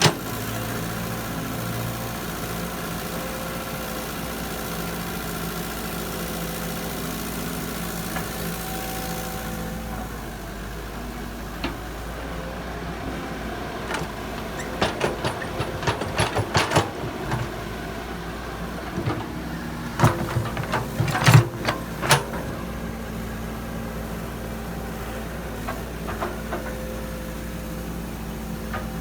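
Diesel engine of the excavator or dump truck running steadily. Two spells of sharp knocks and clatters cut through it, about halfway through and again a few seconds later.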